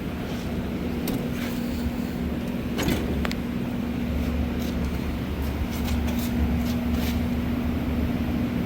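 Steady low mechanical hum with a constant drone, and a few faint clicks.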